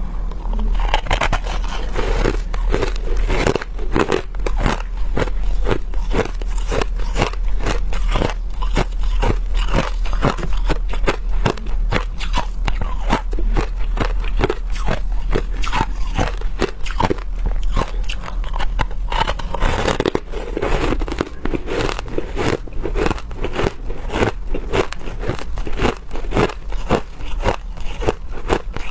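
Hard crushed ice being bitten and chewed: a dense, continuous run of sharp crunches.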